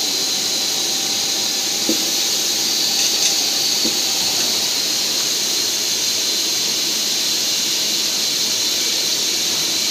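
Steady factory machinery noise: a continuous hiss with a high-pitched whine, with a few faint clicks in the first half.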